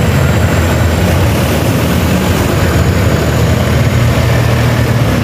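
Diesel engines of John Deere tractors running at low speed as the tractors roll past, a steady low drone.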